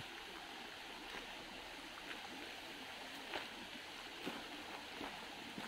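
A small hillside stream running steadily, heard as an even wash of water noise, with a few faint crunching footsteps on stony ground.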